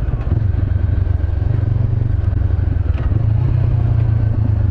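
2013 Honda CB500X parallel-twin engine, fitted with a Staintune exhaust, running steadily under way.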